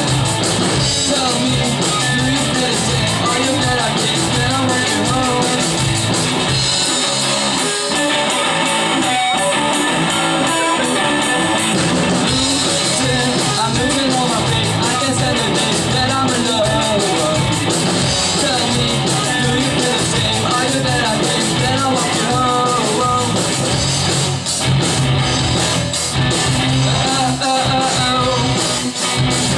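Live rock band playing: electric guitars and a drum kit with a male singer singing into a microphone.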